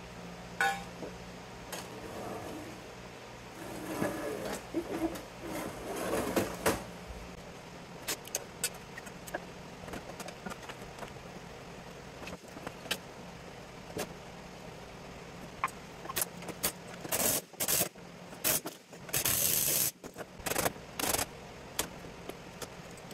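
Scattered metal clanks and knocks, with a few longer scraping noises about three quarters of the way in, as the aluminum and steel parts of a variable frequency drive's chassis are pried apart and handled with hand tools.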